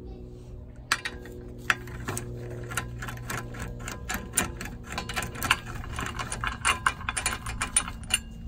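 Socket ratchet clicking in quick, irregular runs as it spins a wheel lug nut off the steel wheel, starting about a second in.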